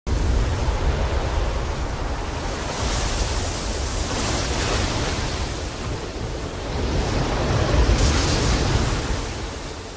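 Rough, stormy sea with large waves breaking on a shore: a continuous rush of surf. It swells about three seconds in and again around eight seconds, then eases near the end.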